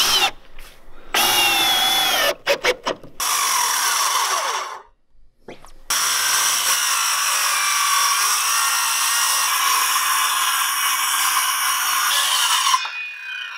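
A drill running in short stop-start spells, then, after a brief pause, a circular saw making one long straight cut through a Warmboard radiant subfloor panel for about seven seconds before it winds down near the end.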